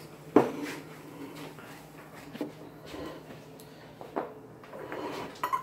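A ceramic plate set down on a wooden tabletop with one sharp knock about half a second in. A few softer knocks and a short clatter follow as the plate is moved about.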